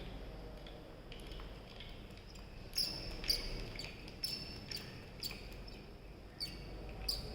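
Carpenter's hand brace boring a drill bit into wood. From about three seconds in come sharp clicks, about two a second.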